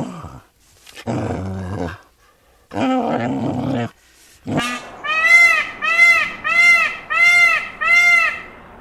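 A small dog vocalizing with two drawn-out sounds about a second each, then a peacock calling five times in a quick, even series of loud, arching cries.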